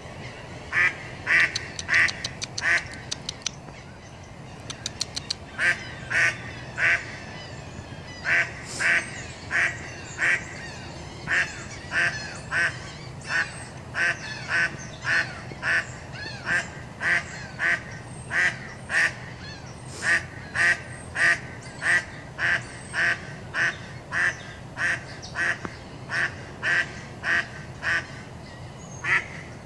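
A hen duck quacking over and over: short single quacks in runs of about one to two a second, with a few brief pauses between runs.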